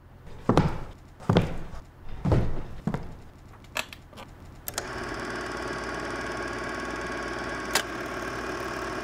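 Four heavy thumps in the first three seconds, then a click about halfway through as a reel-to-reel home-movie film projector is switched on. It runs with a steady mechanical whir and fast clatter, with another click near the end as a control is turned.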